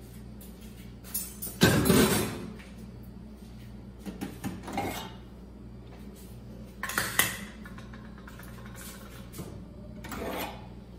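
Metal burner caps and flame spreaders of a gas cooktop clinking and clattering as they are lifted off one by one and set down. The sound comes in four short bursts, the loudest about two seconds in.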